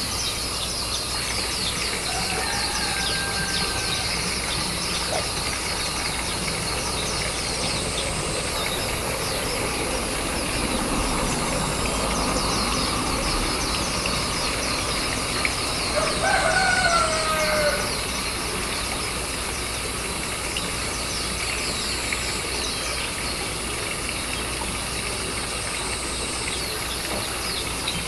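A rooster crowing in the distance, once faintly about two seconds in and once more clearly, for about a second and a half, some sixteen seconds in. Under it runs a steady outdoor background of dense, faint, high-pitched chirping.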